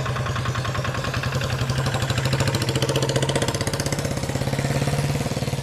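An engine running steadily at idle, a fast even pulsing over a low hum, cutting off suddenly at the end.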